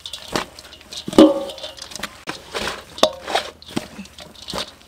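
Shredded green papaya salad being tossed in a stainless steel bowl: wet rustling and a series of knocks against the bowl, the loudest about a second in, some with a brief metallic ring.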